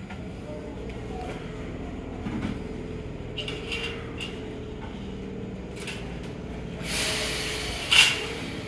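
Izukyu 8000 series electric train humming steadily while it stands at the platform. About seven seconds in comes a hiss lasting about a second, followed by a sharp, loud burst near the end.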